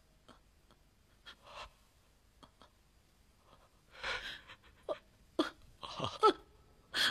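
A person sobbing with gasping breaths and short broken cries. It is faint at first and louder from about four seconds in.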